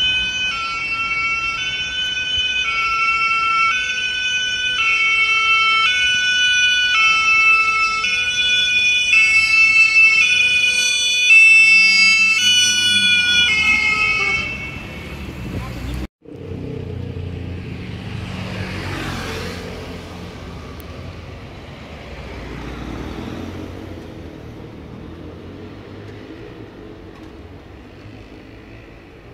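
French emergency-vehicle two-tone siren sounding its alternating high-low notes, steady and loud, stopping about fifteen seconds in. After a cut comes vehicle engine rumble with the rising and falling whoosh of a vehicle passing, fading near the end.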